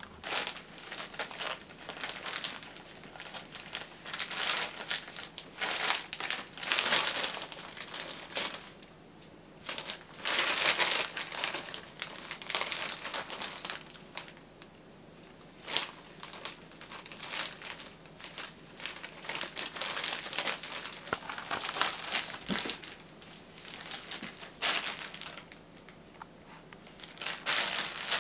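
Thin clear plastic bag crinkling and rustling in irregular bouts, with short pauses between them, as a cat rolls and rubs its head inside and against it.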